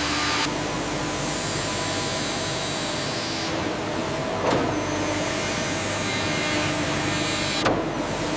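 Steady whirring of woodworking factory machinery. The sound changes abruptly about half a second in, again a little past three seconds, and near the end, with a short knock in the middle.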